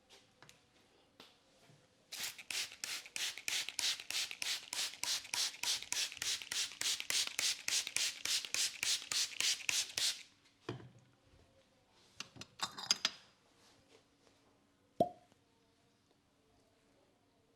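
Rapid, even percussive hand tapping on the head during a head massage, about five strikes a second for some eight seconds. Then a few scattered clicks, and one sharp snap near the end.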